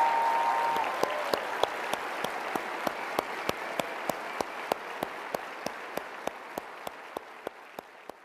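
Conference audience applauding, fading away gradually to nothing, with sharp claps at an even beat of about three a second standing out. A steady held tone sounds in the first second.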